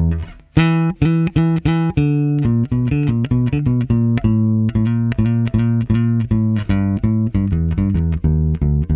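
Electric bass with Tom Marcel vintage Mustang-style pickups and flatwound strings, played through a compressor and DI. It plays a line of plucked notes, with a brief stop just after the start, then a quick run of notes.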